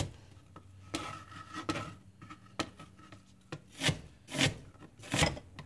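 Chef's knife dicing an onion on a plastic cutting board: a few soft slicing sounds at first, then regular chopping knocks about two a second in the second half.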